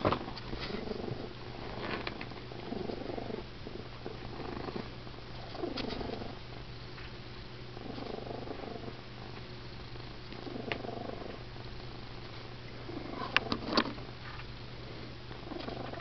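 A cat snoring loudly, a rough sound on each breath recurring about every two seconds. A couple of sharp clicks come about thirteen seconds in.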